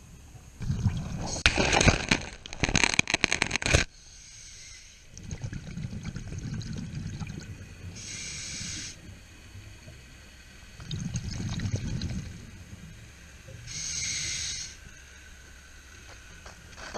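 Scuba diver breathing through a regulator underwater: a short hiss on each inhale and a bubbling rush on each exhale, repeating in a slow cycle of several breaths. The loudest exhale, with crackling bubbles, comes about a second in.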